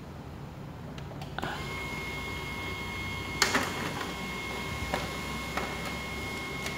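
Canon imageCLASS MF221d laser printer starting a print job: a click about a second and a half in, then a steady high motor whine with a few sharp clicks and clacks as the paper is picked up and fed.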